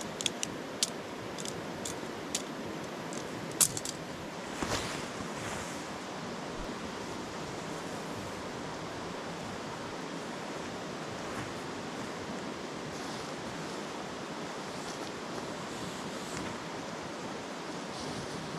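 Steady rushing of a river flowing, with a few sharp clicks and a soft knock in the first five seconds.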